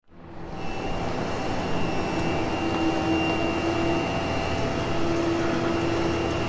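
Steady mechanical din of a Ford car assembly line: constant machinery noise with a few held whining tones, fading in over the first half second.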